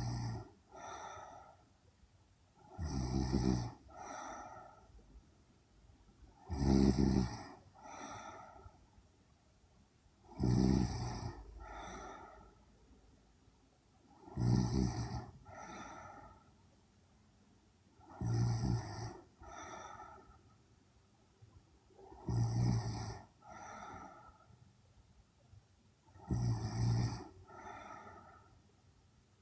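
A young woman snoring in her sleep: a loud snore followed about a second later by a softer one, repeating steadily about every four seconds.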